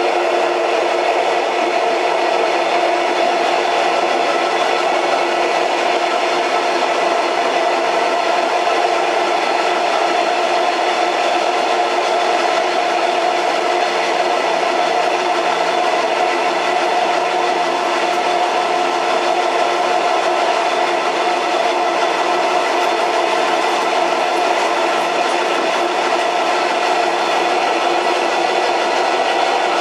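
Old train running steadily: a continuous, even noise carrying several held tones, without a clear clacking rhythm.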